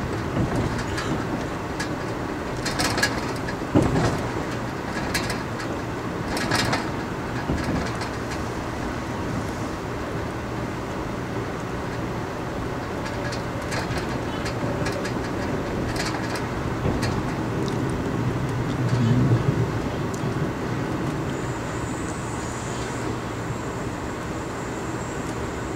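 Amtrak Crescent passenger train heard from inside the coach: a steady low rumble of the train running on the rails, with a few sharp clicks and knocks. A faint high whine comes in near the end.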